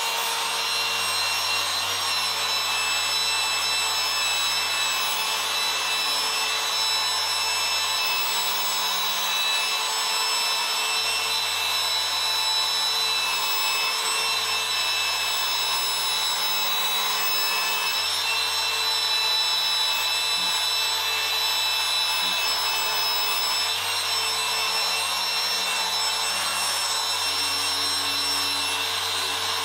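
Rupes Mini Bigfoot dual-action polisher with a microfiber compounding disc, running steadily with a steady whine. It is working compound into the painted alloy plenum in a compounding stage to remove paint defects.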